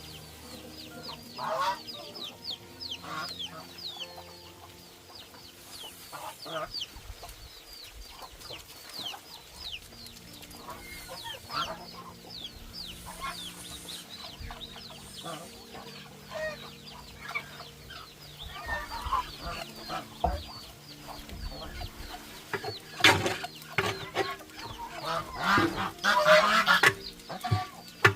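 Chickens clucking, with a constant stream of rapid, high, falling peeps; the clucks grow louder near the end.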